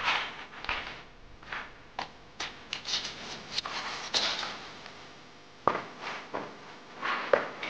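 A cardboard box scraping and rustling on a hard floor as a kitten pushes into it and scrabbles. There are irregular knocks, with a couple of sharper ones in the second half.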